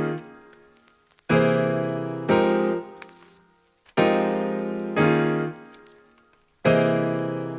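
Background music of sustained keyboard chords, struck in pairs about a second apart and each left to ring and fade.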